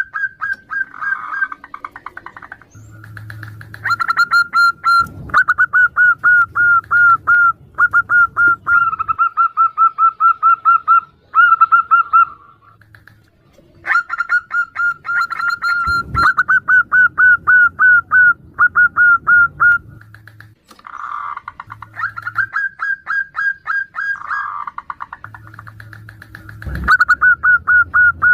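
Zebra doves (perkutut) calling back and forth: runs of rapid, clipped repeated notes, several bursts broken by short pauses, with lower cooing notes in between. The female is calling to the male. A few sharp clicks cut in.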